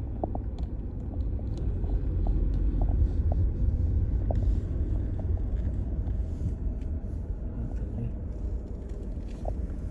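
Low, steady rumble of a vehicle's engine running as the vehicle rolls slowly forward.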